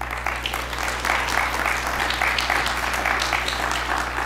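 Audience applause breaking out suddenly, many hands clapping together, over a steady low electrical hum.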